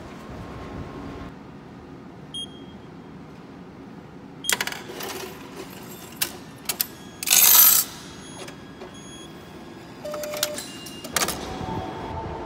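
Subway ticket vending machine working through a sale: a short beep, then mechanical clicks and clatter as it issues the ticket and 820 yen in change. The loudest sound is a rattling burst of under a second, a little past halfway through, typical of change coins dropping into the tray. A short beep-like tone and more clatter come near the end.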